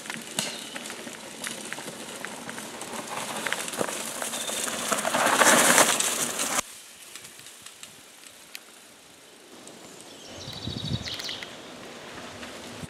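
Mountain bike tyres rolling over dry leaf litter and dirt, with many small crackles. It grows louder as the riders come close, then cuts off suddenly about six and a half seconds in. Fainter rolling follows as another rider approaches.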